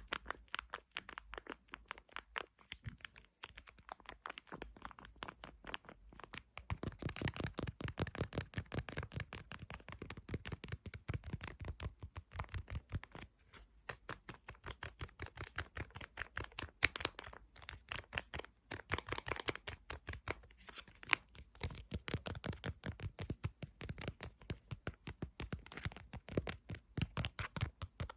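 Rapid ASMR tapping and scratching with the fingertips or nails on a hard object, a fast run of small clicks that grows fuller and louder about six seconds in.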